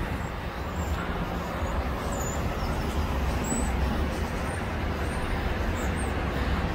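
Steady low rumble of outdoor background noise at trackside.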